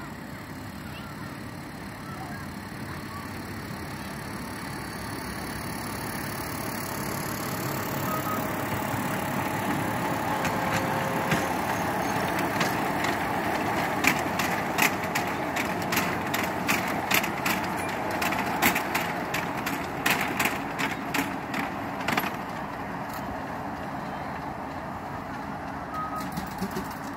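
Miniature railway train rumbling past on its ride-on track, its wagon wheels clicking over the rail joints about twice a second as it goes by. The sound grows as it approaches, is loudest while the wagons pass close, and fades as it runs away.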